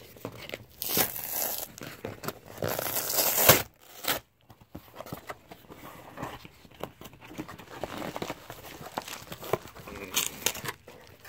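A corrugated cardboard shipping box being torn open by hand: a short rip about a second in and a longer one that stops sharply about three and a half seconds in, then quieter rustling and scraping as the cardboard is handled.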